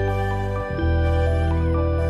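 Soft background music: held chords over a deep bass that moves to a new note about two-thirds of a second in.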